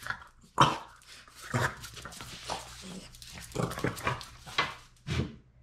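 A dog making short vocal sounds, about six spread irregularly over a few seconds.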